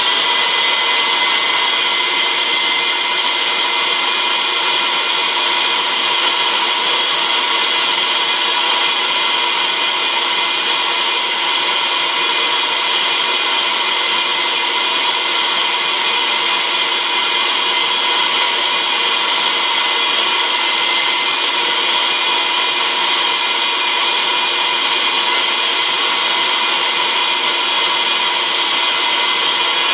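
Wet and dry vacuum cleaner motor running steadily with a high whine, mounted on a homemade water-filtration bucket and sucking plaster dust off the carpet through its hose.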